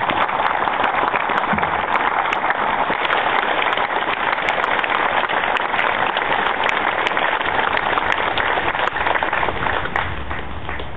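Crowd applauding: dense, steady clapping that thins out near the end.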